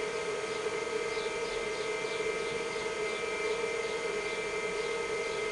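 IBM 5160 PC XT running: a steady hum from its power-supply fan and spinning hard drive, with several steady whining tones and faint high chirps repeating about three times a second.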